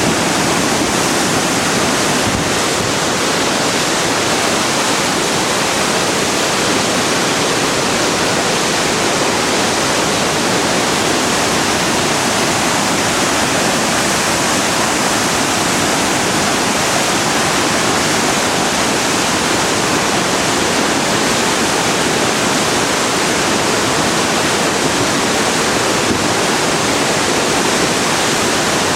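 A river in heavy flood, the Driva at a 50-year flood: a loud, steady rush of torrential water.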